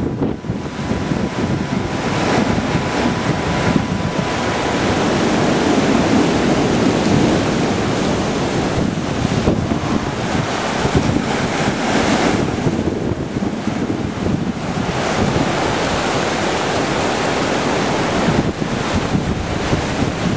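Strong, gusty wind buffeting the microphone over rough surf breaking. These are the tropical-storm-force winds of a passing hurricane's outer bands.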